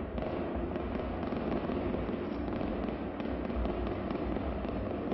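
A fireworks display heard from afar: many shell bursts and crackles running together into a steady rumble, with no single bang standing out.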